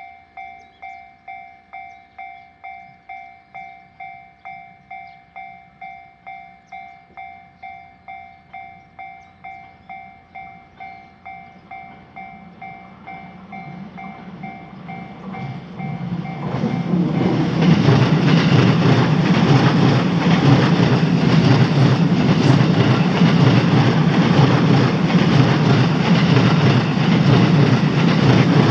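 Japanese railway crossing's electronic warning bell ringing about twice a second. A train comes up from about 13 s and passes loudly from about 17 s, its wheels clattering on the rails and drowning out the bell.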